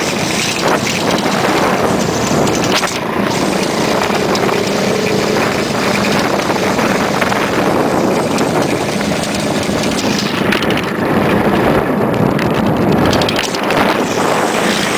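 Boat motor running steadily under loud, continuous rushing wind and water noise.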